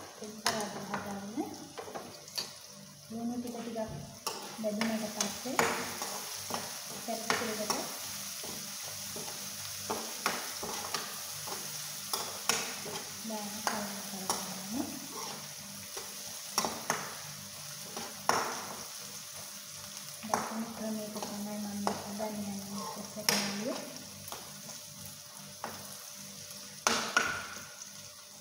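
Sliced onions, green chillies and curry leaves sizzling in hot oil in a wok, with a metal spoon repeatedly scraping and knocking against the pan as they are stirred. This is the tempering stage, the onions frying down.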